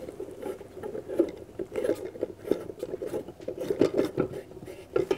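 A compact fluorescent bulb being screwed by hand into a studio light's socket: irregular scraping and rubbing with small ticks as the threaded base turns, inside the light's metal reflector.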